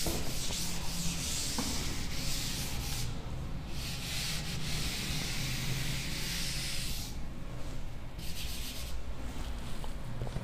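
Blackboard duster wiping chalk off a chalkboard in long strokes: a rough rubbing hiss lasting a few seconds at a time, with short pauses between strokes and a shorter swipe near the end.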